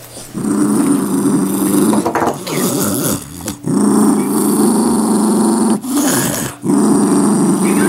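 Black-and-tan dog growling at close range in several long, steady growls with short breaks for breath between them. It is a warning growl at a camera held up to her face.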